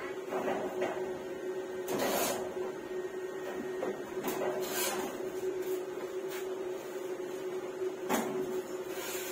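Electric arc welding on a steel frame: about eight short bursts of arc noise, each a fraction of a second, spread over a steady hum.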